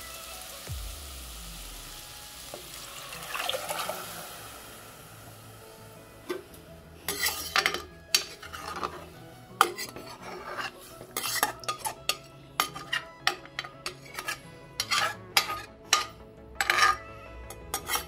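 A hiss from the hot pressure cooker fades away over the first few seconds after water is added to the rice. Then a metal spoon stirs the rice and water, clinking and scraping against the sides of the cooker in quick, irregular knocks.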